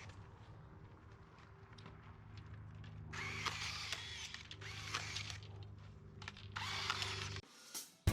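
A power drill runs in three short bursts of about a second each, its pitch bending as it speeds up and slows, over a steady low machine hum that cuts off near the end.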